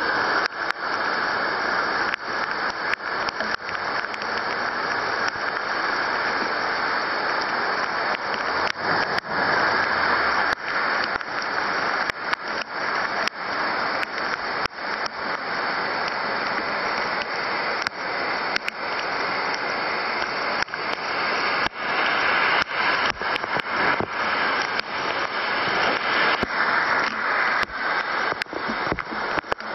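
Heavy rain pouring onto an asphalt street: a dense, steady hiss of splashing water, with many sharp ticks of drops striking close to the microphone.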